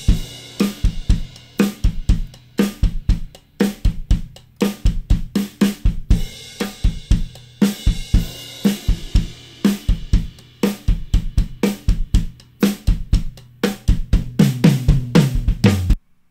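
Recorded drum kit (kick, snare, hi-hats and cymbals) playing a steady groove through a tape-saturation plugin, its sound compared across three tape formulations. The playback cuts off suddenly near the end.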